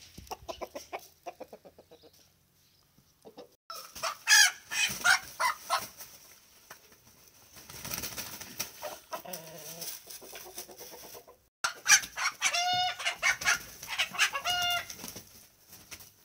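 Domestic chickens clucking and squawking in repeated, pitched runs of calls, with wing flapping, as roosters mount hens. The sound cuts off abruptly twice between clips.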